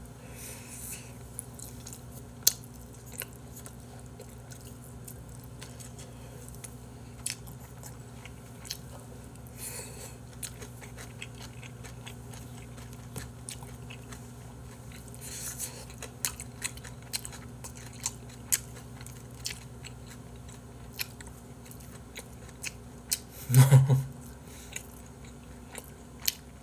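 A man chewing and biting food, with scattered small clicks and smacks, over a faint steady low hum. A short louder sound comes a little before the end.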